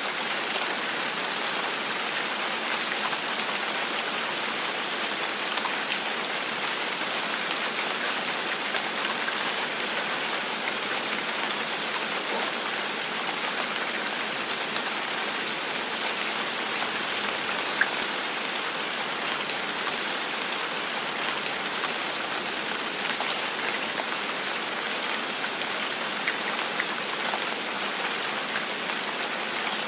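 Steady rain falling on a surface: an even hiss of many drops with scattered individual drop ticks, no thunder.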